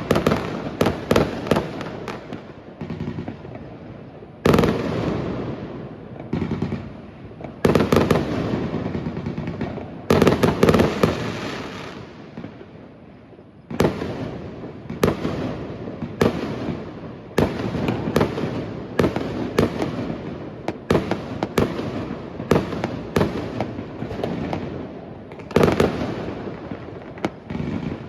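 Fireworks exploding: sharp bangs, some in quick clusters, each followed by a rolling echo. From about halfway through, the bangs come steadily at about one a second.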